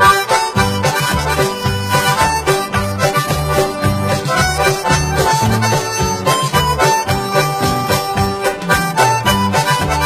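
Background music: a melody of held notes over a pulsing bass line.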